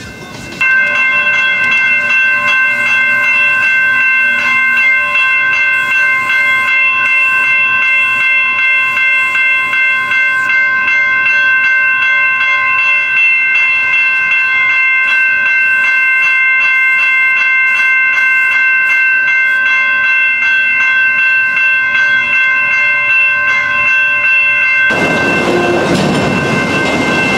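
Freight train rolling by with a loud, steady, high-pitched squeal made of several held tones. A rushing rumble rises in about 25 seconds in.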